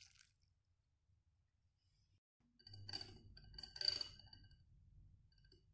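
Metal wire whisk mixing cake batter in a glass bowl. After a quiet start, the whisk clinks against the glass about three and four seconds in, and the bowl rings briefly after each.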